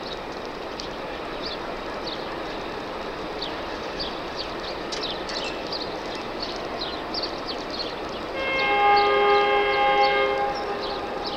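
Horn of a Romanian CFR EA1 electric locomotive sounding once for about two seconds, a loud chord of several steady tones, starting about eight seconds in. Before it there is a steady rushing background with many short high chirps.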